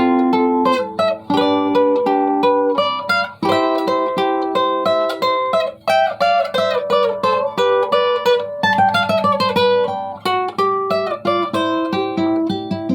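Hugo Chiliquinga requinto, a small high-tuned guitar with a Canadian red cedar top and Brazilian rosewood back and sides, played solo: a picked melody with quick note runs over plucked chords.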